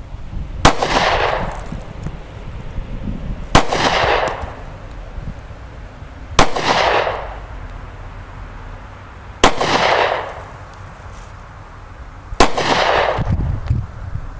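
Handgun fired five times in slow, aimed single shots, about three seconds apart, each sharp crack trailing off in an echo lasting about a second.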